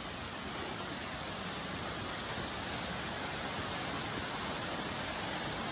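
Mountain waterfall rushing steadily, an even sound of falling water with no breaks.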